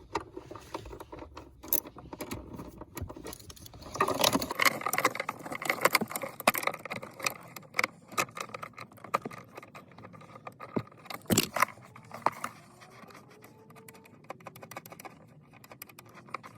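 Small hard parts being handled: a run of light clicking and rattling, busiest about four to eight seconds in, with one sharp click about eleven seconds in.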